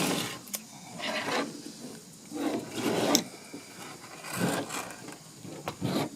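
Plastic parts of a string trimmer's recoil starter housing being handled and turned over: several short scraping and rubbing bursts with brief pauses between them.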